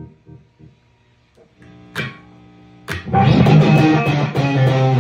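Electric guitar with single-coil pickups, played through an overdrive pedal into an amp. A few quiet picked notes fade away, a chord rings at about two seconds, and loud rhythmic strummed chords start about three seconds in.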